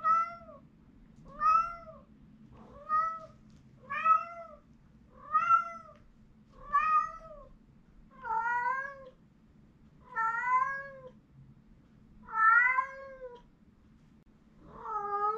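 A house cat meowing over and over, about ten calls roughly a second and a half apart. The later calls are longer and drawn out. It is wailing while left alone, which the owner takes for pining at being left behind.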